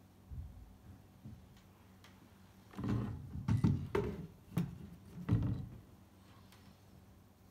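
Handling noise: a soft thump under a second in, then a run of knocks and rubbing sounds from about three seconds to about six seconds.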